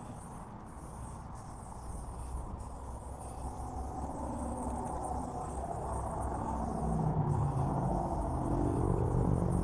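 Aerosol spray-paint can hissing as black paint is sprayed, with a few short breaks where the nozzle is let go. Underneath, a low engine rumble grows steadily louder.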